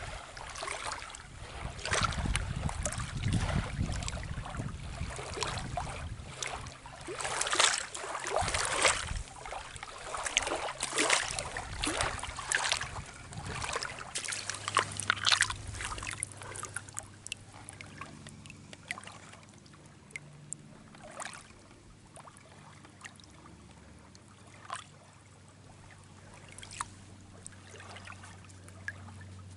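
Hands splashing in shallow lake-shore water as rocks are dipped and rinsed, with trickling and dripping. It turns quieter about halfway through, leaving only a few small clicks and splashes.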